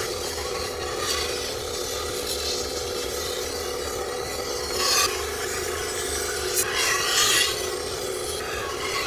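Sword blade grinding against the abrasive of a powered sharpening machine: a continuous rasping scrape over a steady hum, swelling louder twice, about five and seven seconds in.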